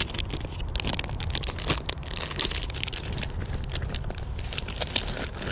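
Plastic soft-bait bag crinkling as it is handled and opened, a dense run of rapid crackles that thins out after about three seconds. A steady low rumble runs underneath.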